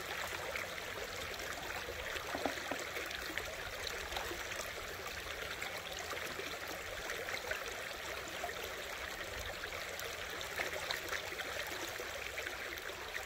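Creek water running and babbling steadily.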